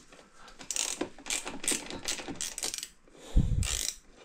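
Ratchet wrench with a 5 mm hex bit clicking, about four clicks a second, as it backs out a bolt. A short low thud follows about three seconds in.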